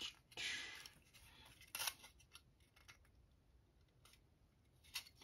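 A pencil scratching along a plastic model car body in two short strokes within the first two seconds, with a few faint clicks of the parts being handled, then near silence.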